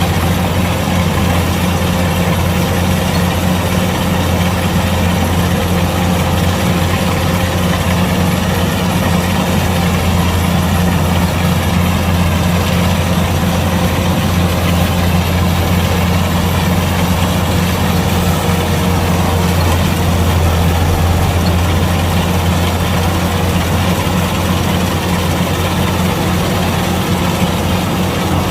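Kubota DC-105X combine harvester's diesel engine running at a steady speed, a constant low drone with no change in pitch.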